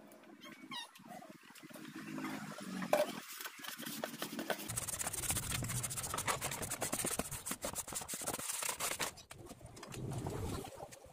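Scratchy rustling of a hand rubbing inside a plastic basin and sand going into it, dense with small ticks for about four seconds in the middle. It is preceded by a faint low pitched sound.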